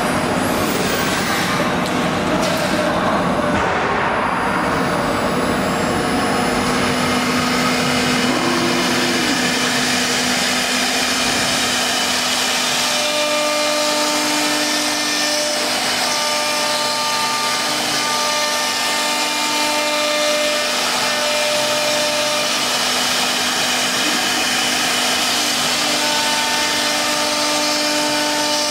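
Three-spindle CNC wood router running and cutting into a wooden door board, a steady loud noise of spindles and bits in the wood. From about halfway through, several steady whining tones come and go as the carving head moves.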